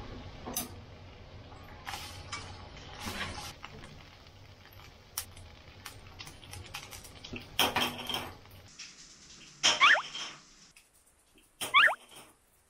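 Kitchen handling sounds: scattered light clinks and taps of chopsticks, plastic-wrapped meat packs and a seasoning shaker beside a frying pan. From about eight seconds in come a few short, louder bursts, two with a quick rising squeak, and the background drops almost to silence near the end.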